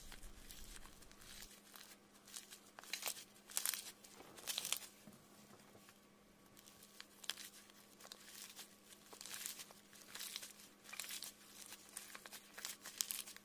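Fluffy slime made of silly string, white glue and shaving cream being squeezed and kneaded by hand: faint, irregular clusters of small crackling pops, over a faint steady hum.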